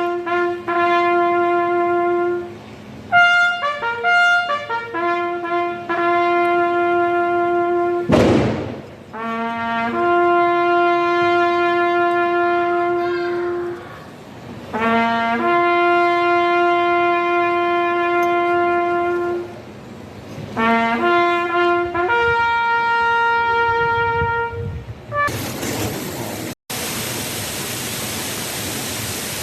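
A single brass instrument plays a slow tune one note at a time, in long held notes with short breaks between phrases. A short, sharp bang comes about eight seconds in. Near the end the music gives way to a steady loud hiss.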